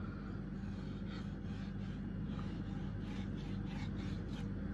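Cleaver slicing a slab of raw pork into thin sheets, the blade drawn through the meat in faint, short scraping strokes about three a second, over a steady low hum.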